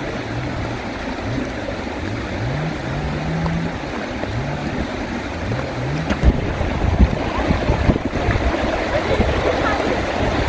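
Running water, a steady rushing wash. A low hum that rises again and again runs through about the first six seconds, and low thumps come in after that.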